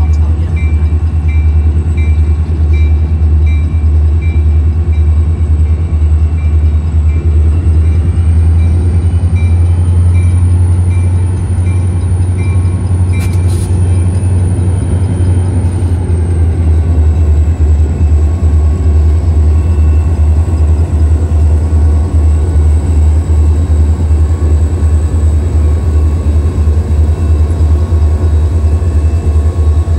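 Train passing close by: a loud, steady low rumble with fast rhythmic pulsing. A faint high ding repeats about twice a second and stops about halfway through.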